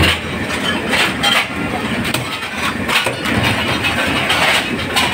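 An engine running steadily, with irregular knocks and clatter over it.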